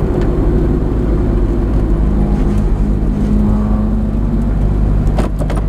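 A car engine idling steadily at a constant low pitch, with a few sharp clicks near the end.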